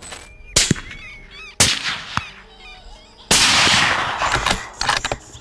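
Several rifle shots, added as sound effects, the loudest a little past three seconds, with a burst of noise lasting about a second. Birds call between the shots.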